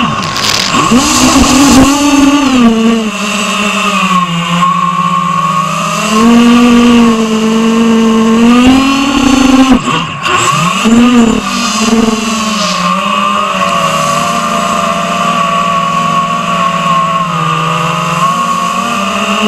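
Eachine Wizard X220 racing quadcopter's four brushless motors and propellers whining, close up from the onboard camera, the pitch rising and falling as the throttle changes through rolls and dives, with a brief dip about halfway through.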